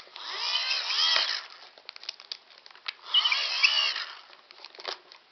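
Go Gen hand-crank generator being cranked in two spurts of about a second each, its gearing giving a whine that rises and falls in pitch. Small handling clicks and rattles in between.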